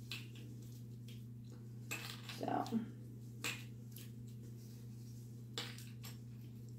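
Hand-handling sounds of jute twine being wound around a candy cane decoration: soft rustles and a few light clinks and taps, busiest about two to three seconds in, over a steady low hum.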